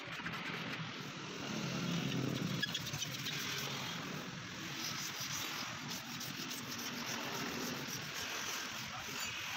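Steady road-traffic background noise, with a passing vehicle engine swelling and fading about one and a half to three seconds in.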